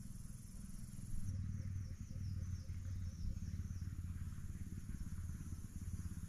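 Forest insects droning high and steady, joined about a second in by a short chirping call repeated about three times a second for a couple of seconds, over a steady low rumble.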